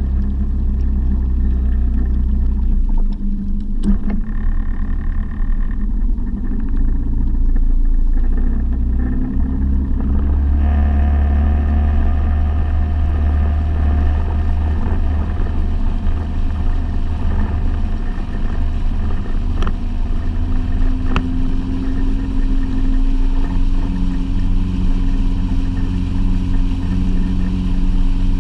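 Fishing boat's motor running steadily under way, with the rush of water and air. About ten seconds in, a louder rushing noise comes in over the engine.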